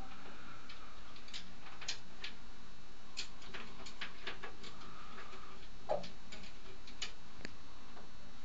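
Irregular sharp clicks and taps, a few a second, as an African grey parrot works its beak along the top of a shower cabin frame, with one louder snap about six seconds in.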